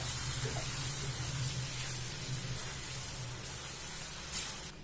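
Butter-fried vermicelli and condensed milk sizzling in a pan as they are stirred, a steady hiss over a low hum. There is one short knock near the end, after which the hiss falls away.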